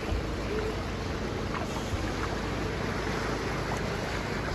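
Steady wind noise on the microphone with surf washing behind it, and a faint low steady hum underneath.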